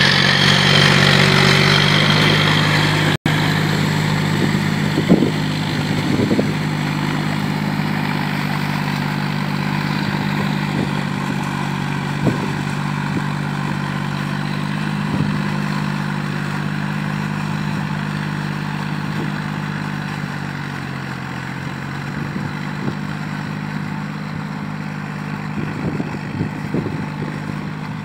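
Tractor diesel engine running steadily under load as its cage wheels churn through a flooded paddy field, puddling the mud, with a few scattered knocks. The engine note drops slightly and grows a little fainter about twenty seconds in.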